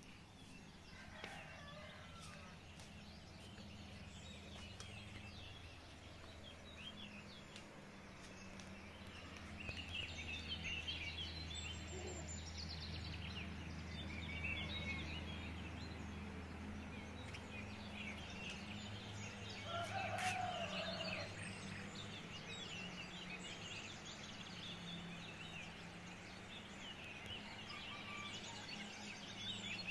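Birds chirping and calling in the trees of a wooded gorge, many short calls overlapping, over a steady low hum; one louder call stands out about two-thirds of the way through.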